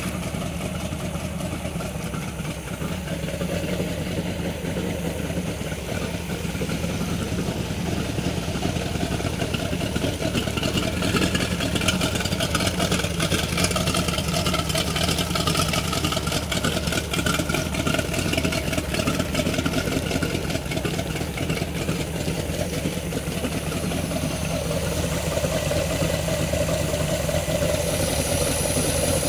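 MerCruiser 7.4 L 454 Magnum big-block V8 marine engine running steadily at idle on a test stand. Its cooling water gushes out of the exhaust outlets onto concrete.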